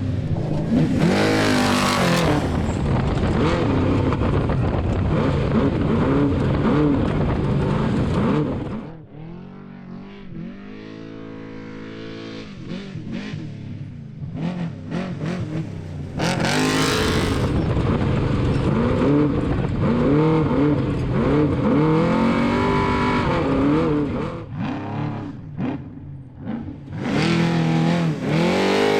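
Off-road race truck engine revving hard, its pitch rising and falling with the throttle. About nine seconds in it drops to a quieter, steadier engine note for several seconds, then the loud revving returns.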